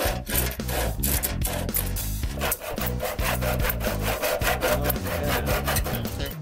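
Hand saw cutting through a wooden board in a steady rhythm of back-and-forth strokes, a rasp on each stroke, with background music underneath.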